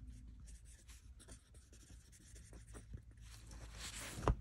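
Pen writing on lined spiral-notebook paper: faint scratching strokes. Near the end, a rustle and one sharp knock.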